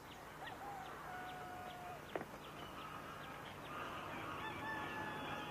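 Birds chirping, with a few held whistled notes in between.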